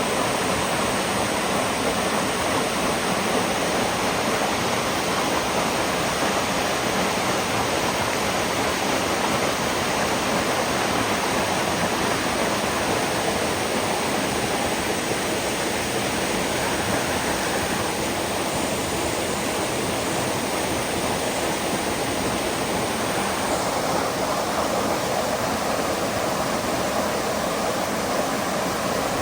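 Water pouring steadily over a dam spillway, a continuous even rush with no breaks.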